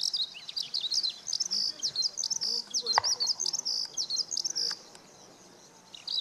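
Eurasian skylark singing: a rapid, unbroken stream of high chirps and trills that breaks off about three-quarters of the way through and starts again at the very end. One sharp click midway.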